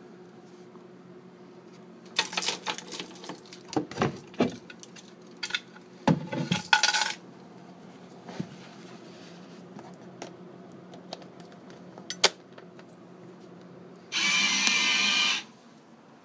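Keys, locks and metal door panels rattling and clicking in quick bursts as a fruit machine's main door and coin-box door are unlocked and opened, over a steady low hum. Near the end a loud steady sound lasts just over a second.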